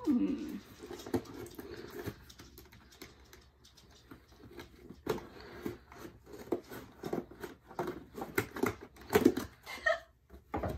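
Scissors cutting through packing tape on a cardboard shipping box, with the box being handled: a run of irregular snips, clicks and scrapes. A brief laugh near the end.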